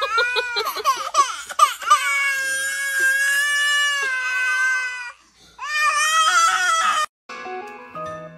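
A baby crying hard: choppy sobbing cries, then a long wail held on one pitch. After a short breath comes a second long wail that cuts off suddenly about seven seconds in. Music follows the cut.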